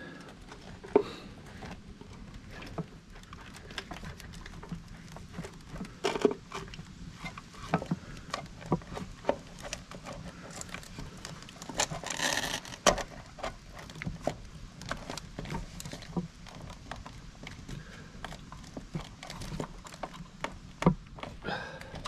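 Hands fitting a motorcycle alarm module and its wiring back into place under the battery: scattered small clicks and taps of plastic and wires being handled, with a longer rustling scrape about twelve seconds in, over a faint steady hum.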